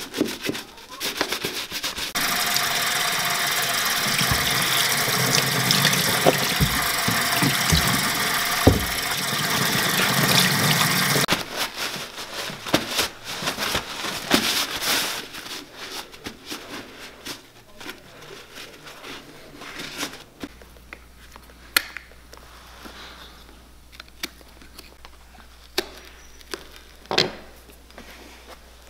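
Stiff brush scrubbing a leather boot with saddle soap, then a tap running into a utility sink for several seconds. After that come quieter rubbing and scuffing strokes from drying the boot with a towel.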